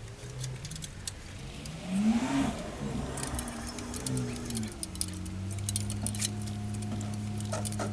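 Metal clinking and scraping of a wrench on the fan bolts at the front of a Chevy small-block engine: a scatter of short, sharp clicks.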